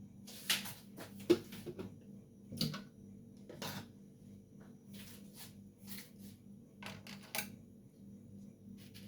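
Knife cutting and scraping peel and white pith off citrus fruit: a series of short, irregular strokes and clicks, the sharpest a little over a second in.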